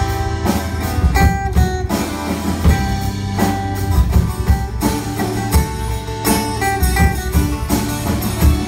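Live acoustic band playing: strummed acoustic guitars and mandolin over a drum kit keeping a steady beat.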